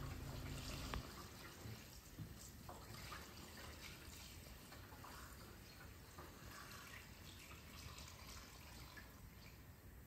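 Faint trickling and dripping of fuel being poured into a tractor's fuel tank. A low hum cuts off about a second in.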